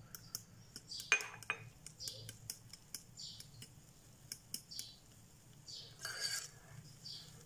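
A metal spoon stirring ground oats into a wet banana and egg mixture in a glass bowl: light, irregular clicks of the spoon against the glass with soft scraping swishes between them.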